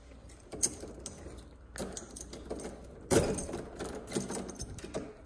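A key being worked in a door's knob lock, with the steel knob turned: a run of metallic clicks and rattles from the key, lock and latch, loudest about three seconds in.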